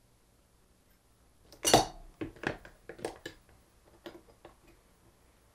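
Metal clinks and taps as the brass valve housing of a pressure-washer trigger gun and small hand tools are handled while a tight pin is worked out of the housing. One sharp knock about one and a half seconds in, then a string of lighter clinks.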